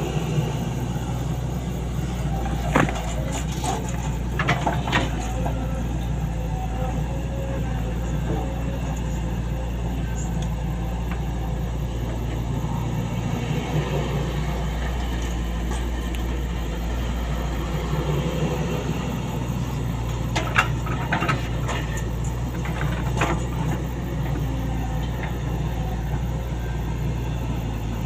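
Sany SY135F excavator's diesel engine running steadily, with sharp knocks now and then: a few around three to five seconds in and a cluster around twenty to twenty-three seconds in.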